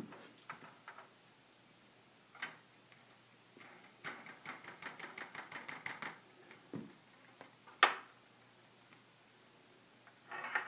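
Ball rolling and clicking along the plastic tracks of a Perplexus Epic maze sphere as it is tilted by hand: a single click, then a quick run of light clicks for about two seconds, then one sharp, louder click later on.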